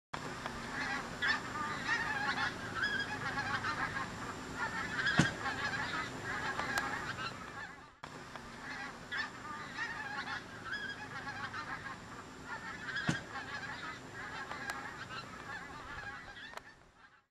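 A flock of geese honking, many calls overlapping continuously, with a few sharp clicks. The sound cuts out briefly about halfway through and then resumes.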